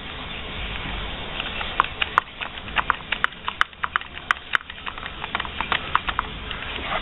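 Irregular quick clicks and taps of a metal bolt and hardware against the plastic front fender mount as they are handled and fitted by hand, starting about a second and a half in.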